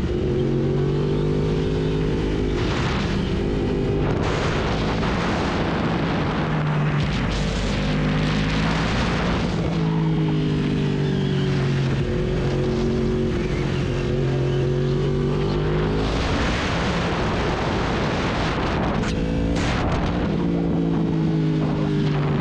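Sport motorcycle engine running under way, its pitch falling and rising several times as the rider rolls off and opens the throttle through corners, with steady wind noise over the microphone.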